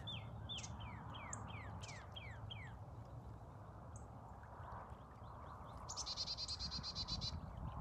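Animal calls: a quick series of high, falling chirps, about three a second, for the first two to three seconds, over a steady low rumble. About six seconds in, a rapid run of fine ticks lasts just over a second.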